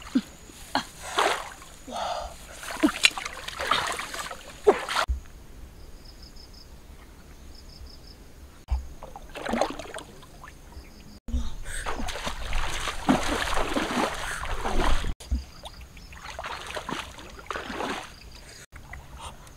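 Water splashing and sloshing in a shallow stream as a person wades and gropes with her hands in the water, in uneven bursts. A quieter stretch near the middle holds short repeated high chirps.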